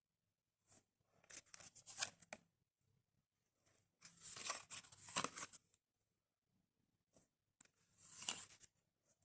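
Faint rustling of paper and card as a handmade paper lapbook is handled, in three short bouts.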